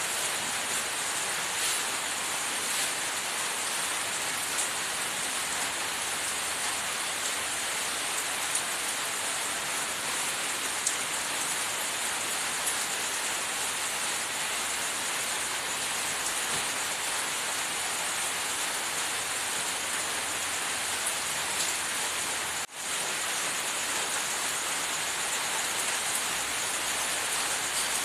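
A steady, even hiss of noise with faint scattered ticks, dropping out for an instant about three-quarters of the way through.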